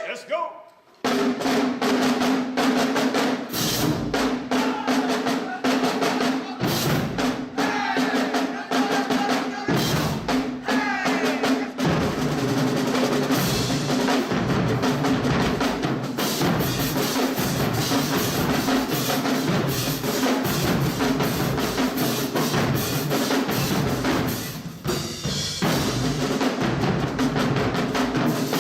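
Band music with heavy drumming, snare and bass drums, under held pitched notes. It breaks off right at the start and comes back in about a second in.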